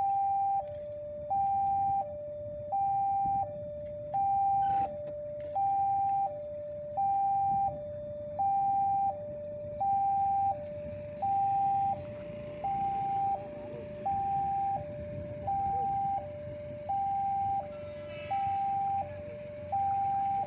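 Automatic railway level-crossing warning siren sounding a steady two-tone hi-lo alternation, a higher note then a lower one, each about three quarters of a second long, the signal that a train is approaching or passing. A low rumble runs underneath, with a single sharp click about four and a half seconds in.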